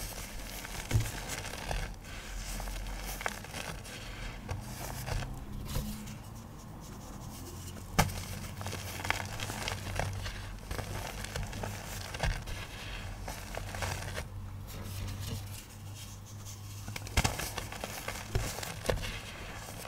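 Dry chalky blocks coloured with iron oxide pigment being crushed: steady crumbling and crackling with scraping, broken by three sharper cracks.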